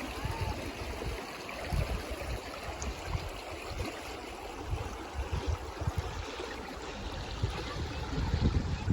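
Water flowing in a stream, a steady rushing, with irregular low rumbles underneath.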